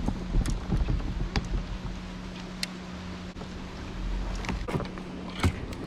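Steady hum of a small electric motor driving the kayak along, with low wind rumble on the microphone and scattered clicks. A sharp knock near the end is the loudest sound.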